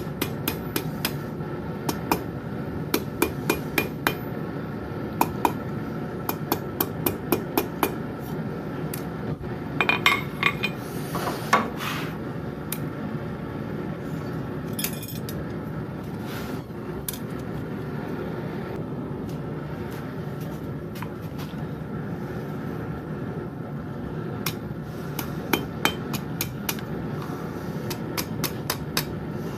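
Hammer striking metal on an anvil in quick runs of blows, about three a second, over a steady noise. In the middle the hammering stops for a while, leaving a few ringing clinks of metal and odd single knocks. Near the end the rapid blows start again.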